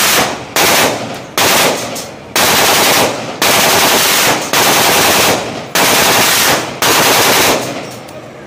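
A shoulder-fired automatic weapon fired in about eight short bursts of rapid shots, roughly one burst a second, each trailing off in echo.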